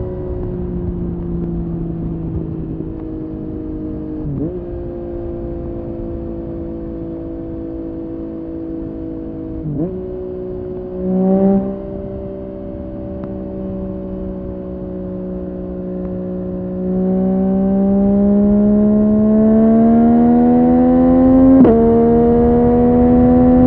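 Yamaha MT-09 three-cylinder engine running through a Dominator HP8 aftermarket exhaust while riding. It holds fairly steady revs with two brief dips, then accelerates with a rising note from about two-thirds of the way in, with a quick dip in revs at a shift near the end.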